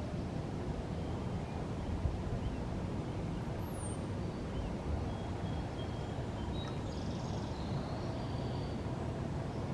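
Steady low outdoor rumble, with faint high bird chirps and whistles now and then above it.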